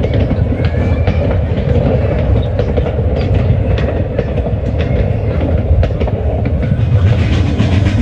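Train running along the track: a steady low rumble with the clatter of wheels over the rails.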